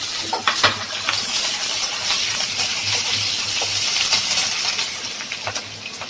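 Sliced onions and panch phoron frying in hot oil in a pan: a steady sizzle with scattered sharp crackles and clicks, easing slightly near the end.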